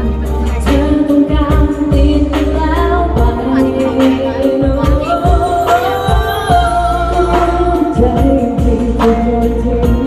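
Singers performing a Thai pop song live through a PA system, over backing music with a steady beat and heavy bass.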